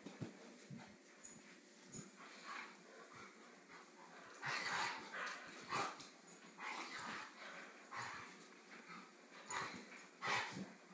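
A yellow Labrador and a small black puppy play-fighting: short, irregular bursts of dog growling and scuffling, the busiest stretch in the middle and another near the end.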